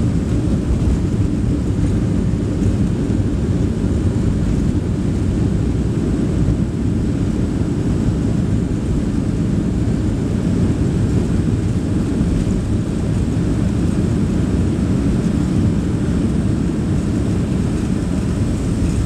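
Steady low roar inside the cabin of a Boeing 737-800 during its landing roll, spoilers raised: the CFM56-7B engines and the wheels rumbling on the runway.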